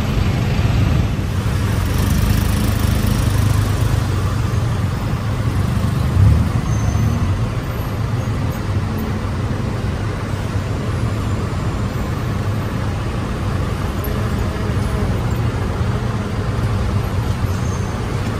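Tuk-tuk engine running in heavy road traffic, a steady low rumble mixed with the noise of surrounding vehicles, with a brief thump about six seconds in.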